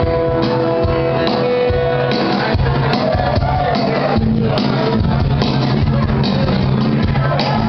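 Live band music from electric bass, acoustic guitar and cajon, with a long held note in the first two seconds.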